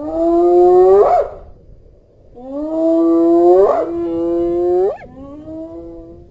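Spotted hyena whooping: about four long calls, each held on a steady pitch and then sliding up sharply at its end, the last one fainter.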